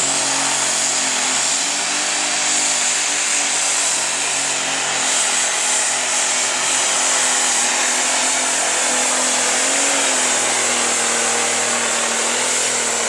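Light pro stock pulling tractor's turbocharged diesel engine running at full throttle under load as it drags the sled, loud and steady. Its pitch rises slightly about two seconds in and dips and recovers near ten seconds.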